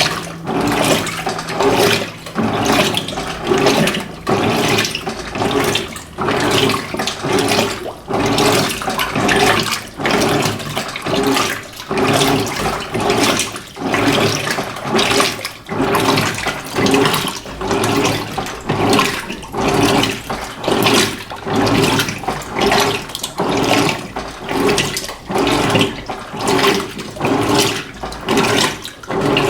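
Electrolux LF90 top-loading washing machine agitating a load of rugs in a low water level: water sloshing and churning in a steady rhythm of surges, about one a second.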